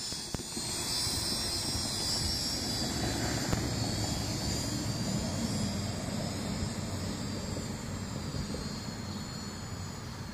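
Syma X5SW quadcopter's four small motors and propellers whining at a high, wavering pitch in flight, growing fainter in the second half. Under it, wind rumbling on the microphone.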